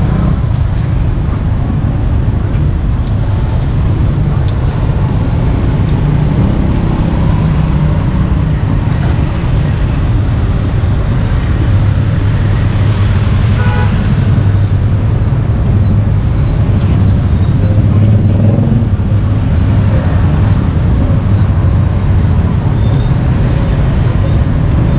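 Steady low engine rumble of street traffic, growing a little louder about halfway through.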